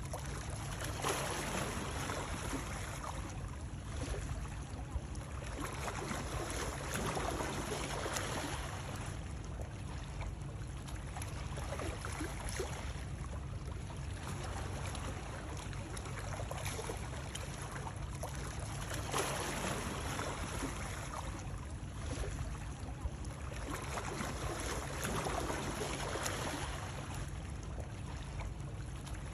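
Continuous water noise: a steady rush over a deep low rumble, swelling and easing every few seconds.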